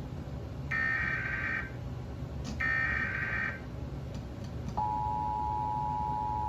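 Emergency Alert System SAME header: the second and third data bursts, each a harsh warbling screech of about a second. About five seconds in, the EAS two-tone attention signal (853 and 960 Hz together) starts and holds steady.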